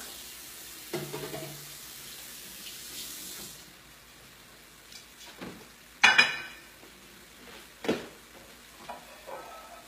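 Kitchen sink tap running as a plate is rinsed under it, shut off about three and a half seconds in. Then the plate clatters against the sink, with a loud ringing knock about six seconds in and another about eight seconds in.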